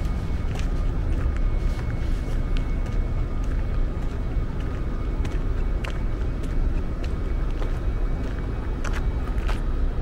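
Outdoor street ambience: a steady low rumble of road traffic, with scattered sharp clicks like footsteps and a faint steady hum.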